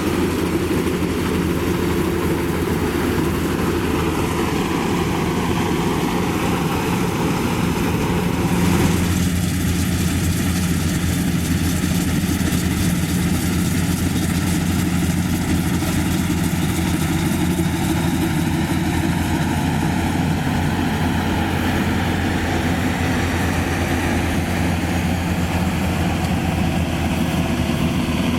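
Engine of a Maxxi Bimo 102 rice combine harvester running steadily while it works, its note shifting slightly about nine seconds in.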